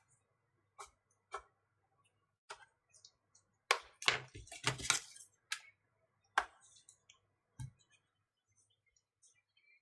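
Scattered sharp clicks and taps of hard plastic, with a quick flurry of them a little before halfway: a pry tool working around the tablet's snap-fit back cover and its clips.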